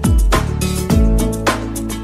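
Background music with a steady beat and deep drum hits.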